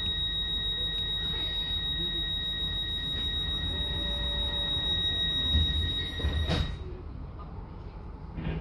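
Train door-closing warning: a steady high electronic tone sounding for about six and a half seconds, then cutting off with a sharp thud as the doors shut. A low rumble from the standing train runs underneath.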